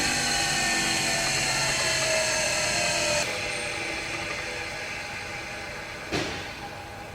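Surface grinder running with a steady whine that is switched off about three seconds in, the machine then winding down as the sound slowly fades. A single sharp knock near the end.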